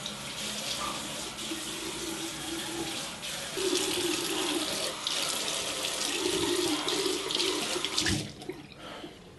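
Bathroom tap running into a basin while water is splashed onto the face from cupped hands, with several louder splashes. The water stops suddenly a little over 8 seconds in as the tap is shut off.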